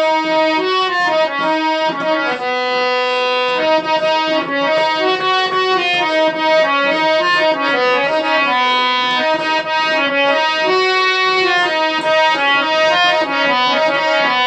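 Indian harmonium played solo: a melody of sustained reed notes moving in steps over a steady held drone note.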